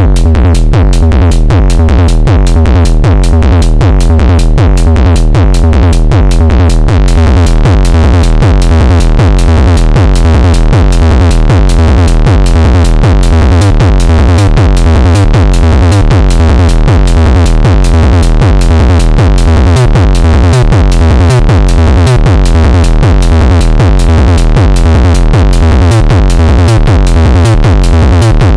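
SSF Ultra Kick Eurorack kick drum module playing a loud, steady, evenly spaced run of synthesized kick drum hits, with a heavy low boom on each hit.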